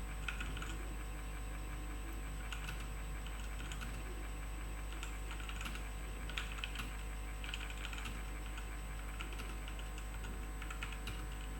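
Typing on a Leaven K620 mechanical keyboard: irregular runs of key clicks over a steady low electrical hum.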